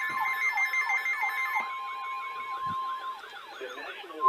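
Weather alert radio alarm sounding: a siren-like tone sweeping down about three times a second, over a steady warning tone that stops about three seconds in. It marks an incoming flood warning broadcast.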